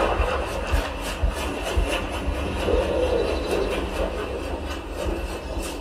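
Hisense HS218 2.1-channel soundbar and subwoofer playing a TV demo soundtrack, picked up in the room: a deep, steady bass rumble from the subwoofer under a noisy wash with irregular crackles, without clear music.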